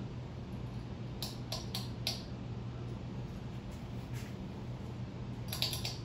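A 52-inch Harbor Breeze Pawtucket ceiling fan running: a steady low hum, with a few light clicks about a second in and again near the end.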